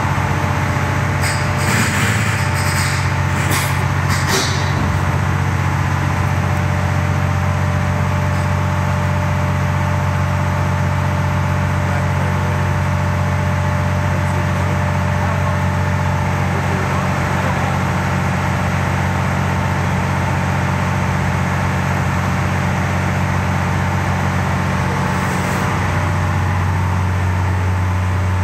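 Cat 992 wheel loader's diesel engine running steadily as it lifts and tips a 22-yard dragline bucket. A few short hisses come in the first few seconds, another comes near the end, and the engine note shifts at about the same time.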